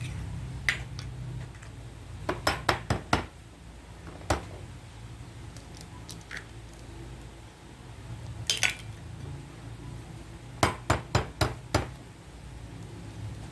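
Utensil clinking against a bowl while egg is mixed, in two runs of about five quick strikes with a few single clinks between.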